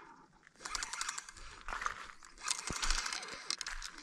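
Fishing reel being cranked to wind in a bottom line, a rapid fine clicking in two spells, with a couple of dull knocks from handling the rod.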